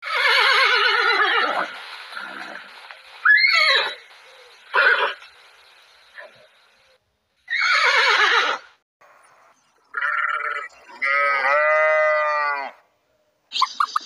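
Horses neighing: several separate whinnies with short pauses between them, some falling in pitch over about a second.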